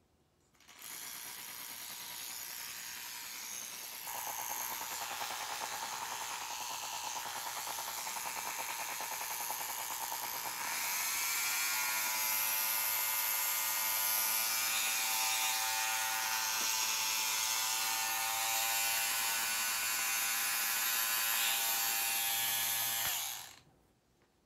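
1930s Schick electric razor running: a rough buzz that gets louder about four seconds in, then around ten seconds in rises in pitch and settles into a steady, louder hum with a clear tone, and stops suddenly shortly before the end.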